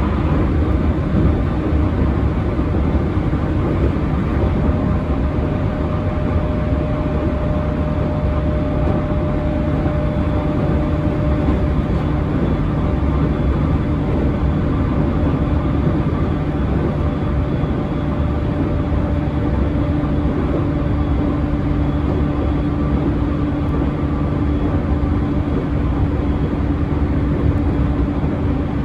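Cabin running sound of an unrefurbished E231 series 1000 EMU motor car at speed: steady rolling rumble of wheels on rail with the motors' hum under it, a strong low drone. The hum tones hold steady, and a lower one grows stronger past the middle.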